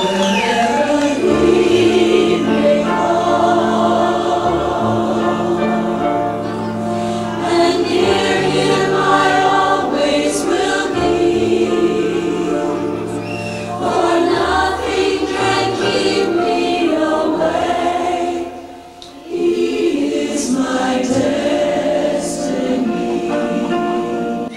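Music with a choir singing long held notes. The sound drops away briefly about three-quarters of the way through, then picks up again.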